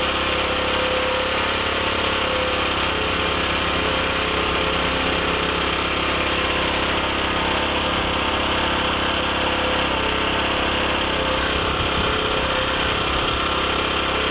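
Small gasoline generator engine running steadily while fed from an HHO electrolyzer, its fuel line empty so that it runs on the gasoline left in the carburettor float bowl.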